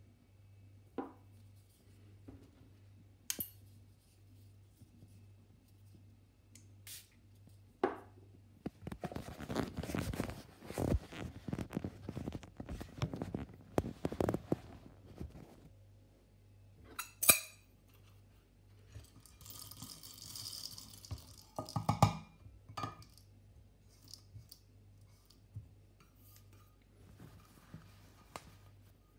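Scattered clicks and knocks from handling an Orphan Espresso Pharos hand coffee grinder, with a dense rattling rush of whole coffee beans poured into it from about nine to fifteen seconds in.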